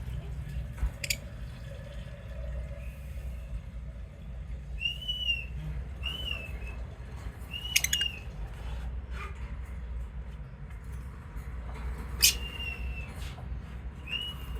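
Lovebirds chirping: scattered short, shrill calls a second or several apart, a few of them sharp and clipped, over a steady low background hum.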